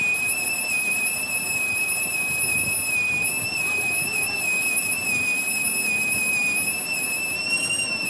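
A steady high-pitched whine that wavers slightly in pitch, over a low background noise.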